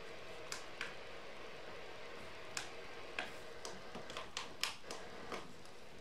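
Faint irregular clicks and taps, about a dozen scattered unevenly, over a low steady hiss with a faint hum.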